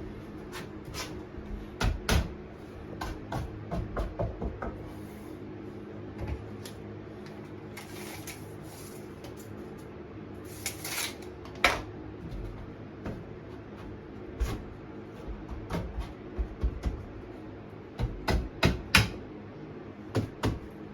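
Irregular wooden knocks, taps and clatter of cabinet boards being handled and fitted, with a couple of short rasping scrapes near the middle.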